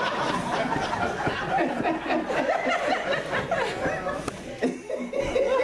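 Congregation laughing and chattering, many voices overlapping at once.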